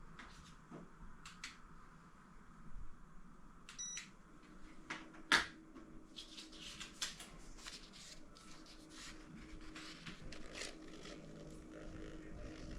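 A short electronic beep, then a sharp click, followed by a steady low hum of a ceiling fan motor, with scattered light clicks and ticks throughout.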